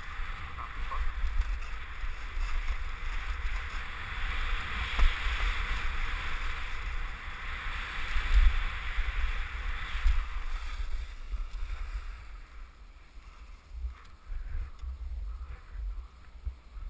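Wind rumbling on a GoPro's microphone over the hiss of skis sliding on packed snow. The hiss fades about two-thirds of the way through, leaving a quieter, gusty rumble.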